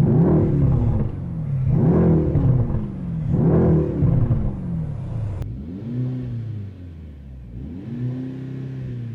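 Mercedes-AMG C63 engine revved three times, each rev rising and falling back. After a cut, two quieter revs follow.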